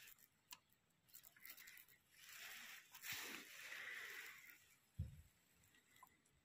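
Faint handling noises as a saw chain is set into a chain sharpener's clamp: light metallic clicks of the chain links, a soft rustle that lasts a couple of seconds, and one low thump about five seconds in.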